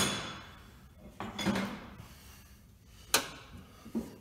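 Sharp metallic clanks and clatter of hand tools and bolts on the engine and transmission as the engine is bolted up: a loud ringing clank right at the start, a scraping clatter about a second and a half in, and a short clank about three seconds in.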